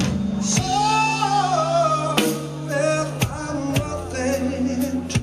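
Live rock band playing a slow song: bass, Wurlitzer keyboard and drum kit with several sharp drum and cymbal hits, under a sliding, wavering sung melody.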